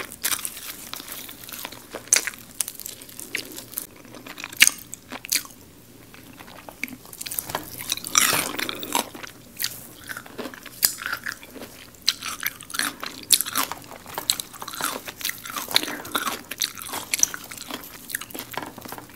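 Close-miked biting and chewing of crispy garlic fried chicken, the battered crust crunching in many sharp cracks. There is a brief lull about six seconds in, then a dense run of crunching about eight seconds in.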